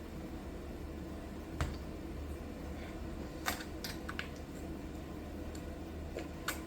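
Five sharp clicks and taps of computer hardware being handled, the loudest a little past the middle, over a steady low hum.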